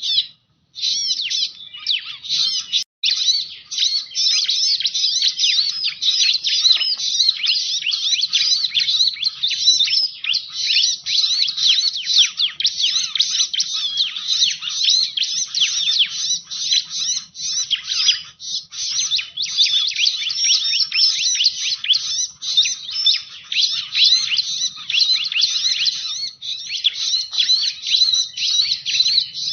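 Bar-winged prinia (ciblek) song played as a bird-trapping lure call: a rapid, unbroken stream of high-pitched chirps and twitters, with a couple of brief pauses near the start.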